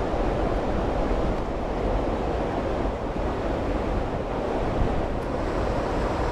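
Steady rush of water pouring over a weir and churning below it, mixed with wind buffeting the microphone.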